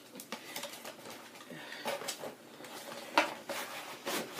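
Cardboard box and its packaging being handled: rustling, scraping and small clicks, with a sharp knock about three seconds in.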